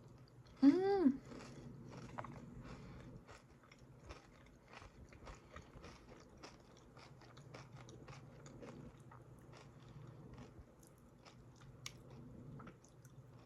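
Chewing a crunchy mouthful of Dubai chocolate, a chocolate bar filled with pistachio cream and crisp shredded pastry, giving small crunches throughout. About a second in there is a short hum of the voice that rises and falls.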